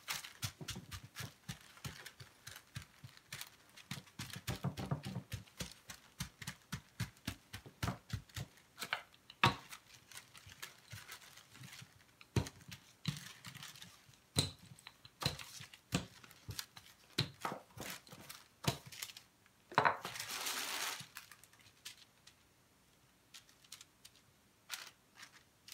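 Parchment paper crinkling and rustling, with many small sharp clicks and taps, as a ground-chicken pizza crust is pressed out between two sheets. About twenty seconds in comes a denser rustling noise lasting about a second and a half.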